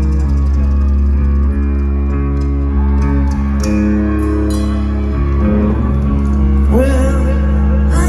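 Live rock band playing loud through a PA, with electric guitar and a heavy bass-and-drums low end, heard from within the audience.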